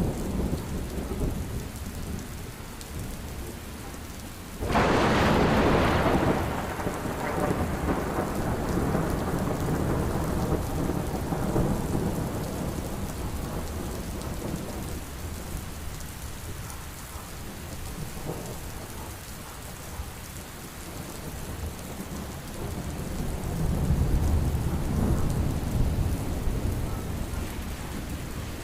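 Heavy rain falling steadily under low rolling thunder. About five seconds in, a sudden loud thunderclap fades away over several seconds, and a second swell of rumbling thunder comes near the end.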